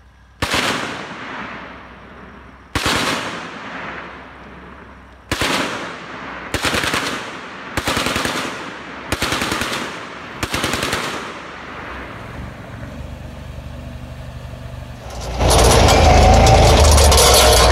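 Seven short bursts of belt-fed machine-gun fire over about ten seconds, each trailing off in a long echo. About fifteen seconds in, a loud steady rush of the Argo 8x8 amphibious ATV's engine and motion takes over, close up.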